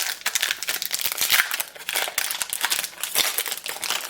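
Plastic wrapper of a trading-card booster pack crinkling as it is opened and handled, a dense run of irregular crackles.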